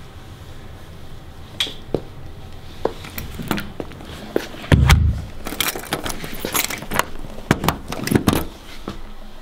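A door being opened: scattered sharp clicks and knocks, a heavy thump about halfway through, then a quick clatter of clicks.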